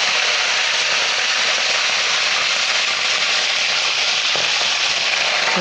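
Fish frying in hot cooking oil, giving a steady, even sizzle.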